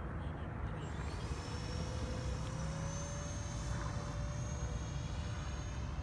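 FMS 50 mm electric ducted fan of a radio-controlled model plane whining in flight; its pitch rises about a second in, then holds steady, over a low rumble.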